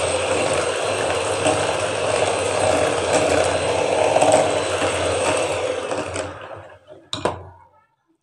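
Electric hand mixer running, its beaters whirring and rattling in a glass bowl of mango and milk mixture. About six seconds in it is switched off and winds down, followed by a short knock, then quiet.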